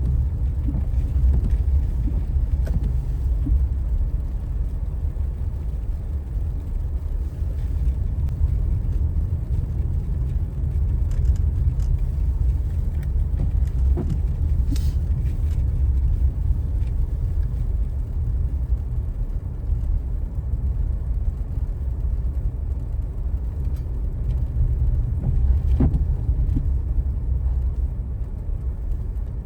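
Steady low rumble of a car driving, heard from inside the cabin, with a few brief clicks.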